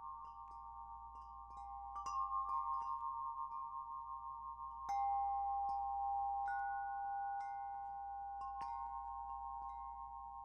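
Aluminum-tube wind chime ringing, its tubes struck every second or two. Each strike gives a clear note that rings on for several seconds, so the notes overlap. The loudest strike comes about halfway through.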